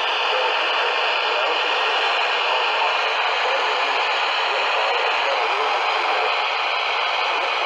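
Steady radio static: the even hiss of a weak received broadcast signal, holding at one level throughout.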